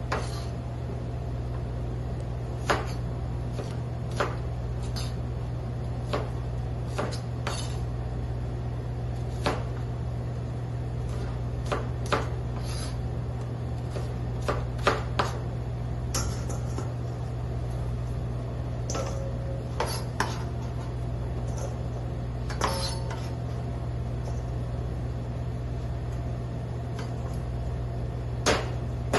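Knife blade knocking on a plastic cutting board in single, irregularly spaced chops as an onion is cut into chunks, over a steady low hum.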